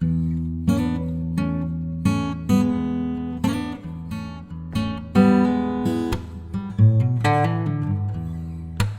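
Acoustic guitar music: a run of strummed chords, each struck sharply and left to ring.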